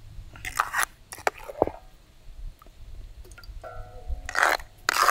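Thick, wet masala paste squelching in a stone grinding mortar (aattukkal) as the stone pestle is worked and lifted out and the paste is scooped with a ladle: short, sticky squishes and soft knocks. A brief faint tone sounds a little before the four-second mark.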